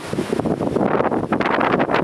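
Gusty tropical-storm wind buffeting the microphone: loud, uneven rushing noise that surges and dips from moment to moment.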